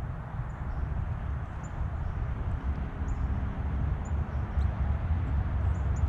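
Steady, uneven low rumble on an outdoor microphone, like wind or distant traffic, with faint short high-pitched bird chirps every second or so.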